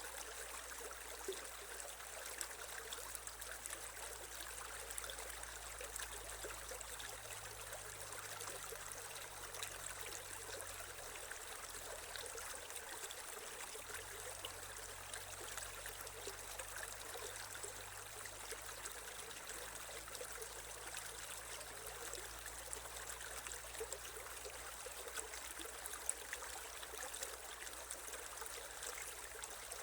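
Creek water running over stones: a steady trickling and burbling with small splashes, even throughout.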